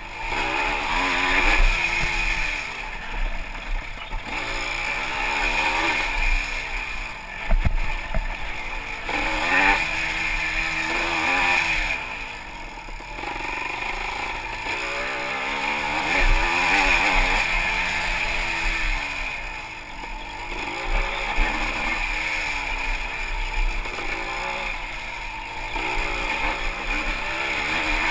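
Yamaha IT200 two-stroke single-cylinder dirt bike engine revving up and down again and again under riding load, with a few sharp knocks along the way.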